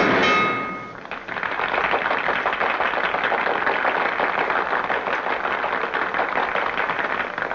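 A loud sound with ringing tones fades out within the first second. From about a second in, a crowd applauds, many hands clapping densely.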